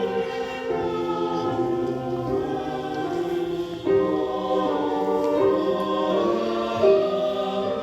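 Background music: a choir singing a slow piece in long held notes.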